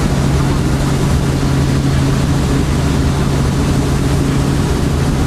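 Helicopter engine and rotor noise heard from on board: a loud, steady drone with a strong low hum.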